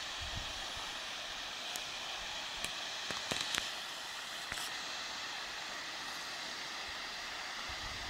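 Steady rushing hiss of rain and a cliff waterfall falling to the sea, with a few sharp close ticks around the middle. Low wind buffets on the microphone come at the start and again near the end.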